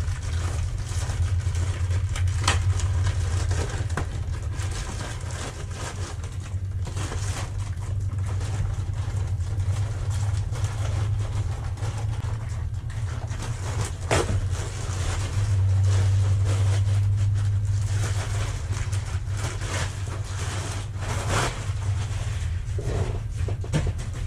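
A steady low hum that swells and fades, with scattered crinkles and knocks of packaging being handled and opened.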